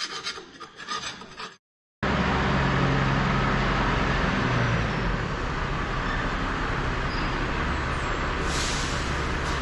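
Faint scraping for about a second and a half, then, after a sudden cut, a tractor engine running steadily with a low hum.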